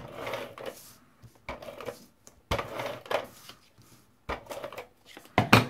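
Scotch Advanced Tape Glider (ATG adhesive tape gun) drawn along a strip of paper in several short passes, its mechanism rattling as the adhesive tape feeds off. A sharp clack near the end.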